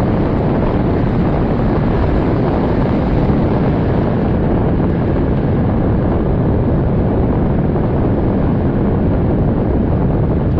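Strong wind blowing steadily, a loud rushing noise that buffets the microphone, heaviest in the low end.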